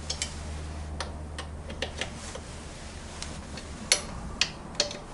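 Irregular sharp metallic clicks of an Allen key on the exhaust mounting bolts as they are cranked down, about ten in all, the loudest about four seconds in.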